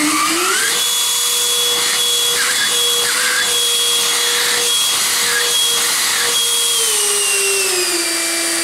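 90 mm electric ducted fan of a large RC MiG-15 model jet running on the bench, a steady high whine over a loud rush of air sucked in through the nose intake, like a vacuum machine. The pitch rises for the first second, holds, then steps down about seven seconds in as the throttle is eased back.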